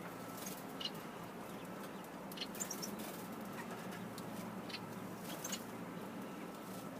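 Small aviary birds, finches and canaries, giving short, scattered high chirps and calls, a few at a time, over a steady background hiss.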